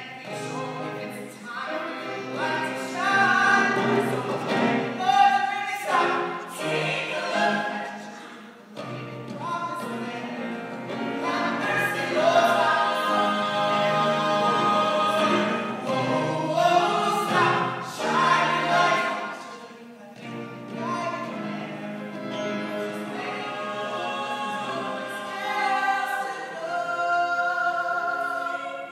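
Small mixed ensemble of voices singing a musical-theatre number in harmony, with piano accompaniment.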